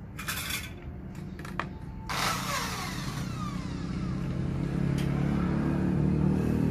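An engine running and getting steadily louder, with a sudden rush of noise about two seconds in.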